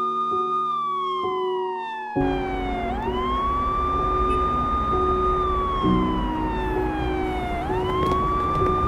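Police siren wailing over slow, sad piano music. Each cycle rises quickly, holds high, then falls slowly, about five seconds a cycle, and a steady low rush joins about two seconds in.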